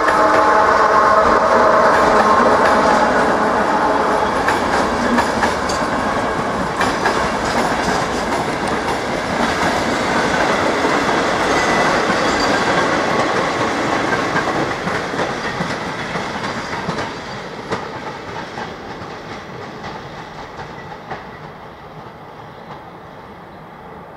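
Passenger train hauled by a Czech Railways electric locomotive passing close by. There is a steady whine from the locomotive at first, then the wheels of the coaches clatter over the rail joints and the sound fades away as the train leaves.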